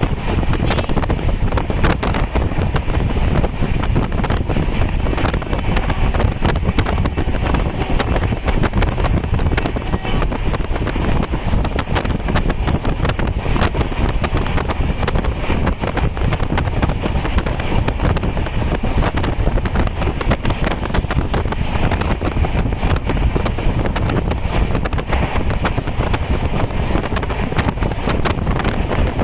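Wind buffeting the microphone: a steady, loud rumble with hiss and no change throughout.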